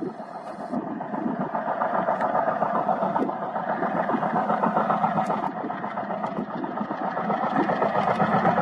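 Twin ALCO diesel locomotives hauling a passenger train, their engines chugging hard under power. The sound grows louder over the first couple of seconds as they approach.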